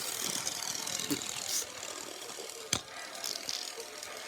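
Toy train running along its track, a steady mechanical clicking and rattling of its small motor and gears, with one sharp knock about two-thirds of the way through.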